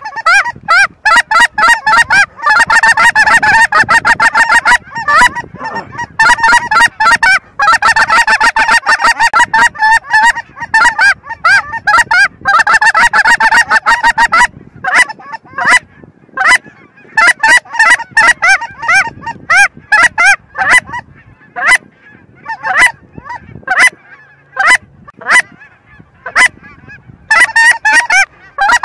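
A large flock of geese calling in flight, many high honks overlapping into a dense clamour. About halfway through the calls thin out to scattered single honks, then swell again near the end.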